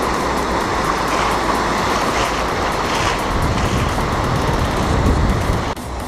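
Surf breaking and washing up a sandy beach, with heavy wind rumble on the microphone; the sound drops off briefly near the end.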